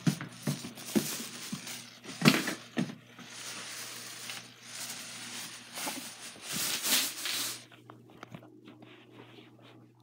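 Handling noise from a handheld phone being moved about: rustling and rubbing with several sharp knocks. The rustling stops about three-quarters of the way through, leaving a faint low hum.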